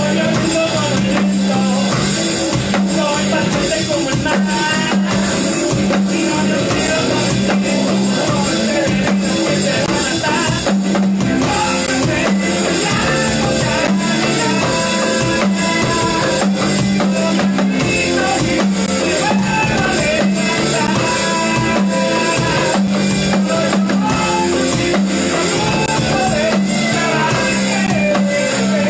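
Alternative-rock song playing loud with a male singer, electric guitar and a steady driving drum beat, the drums played live on an electronic drum kit.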